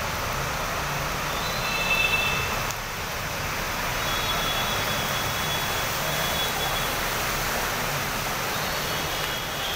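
Steady roar of a heavy downpour and water running over a flooded street.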